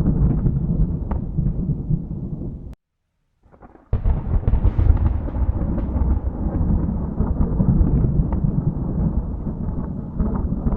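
Rolling thunder rumbling low and continuously, with crackles through it. It cuts off abruptly about three seconds in, falls silent for about a second, then comes back suddenly at full strength.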